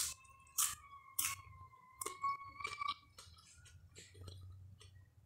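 A person chewing a mouthful of food close to the microphone, with a few sharp wet mouth smacks in the first two seconds, then softer chewing.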